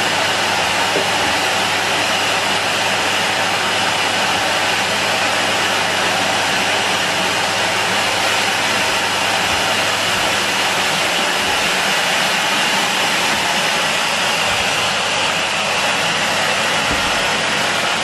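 Henry cylinder vacuum cleaner running steadily: a constant rushing motor noise with a high-pitched whine.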